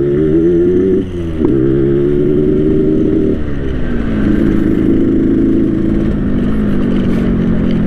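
Yamaha RX-King's single-cylinder two-stroke engine running under way through its 'ngorok' tuned split exhaust. The revs climb, drop sharply about a second in, climb again, fall back around three and a half seconds, then hold steady.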